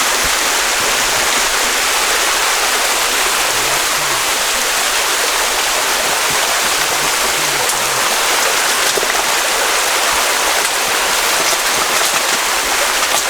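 Creek water rushing steadily, an even, unbroken rush of flowing water.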